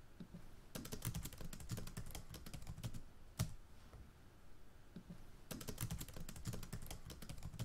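Faint computer-keyboard typing, sped up: two dense runs of rapid key clicks with a near-quiet gap and a single click between them.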